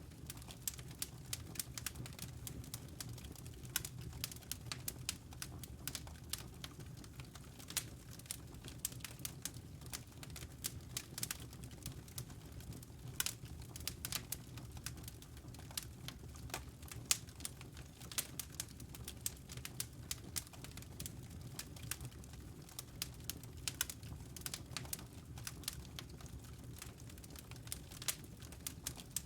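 Wood fire crackling in a fireplace: irregular sharp pops and snaps over a low steady rumble of the burning logs.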